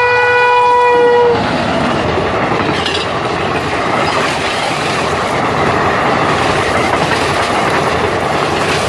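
Electric locomotive's horn, one steady blast that cuts off about a second and a half in, then the express train's passenger coaches passing close by on the next track with the steady noise of wheels on rail.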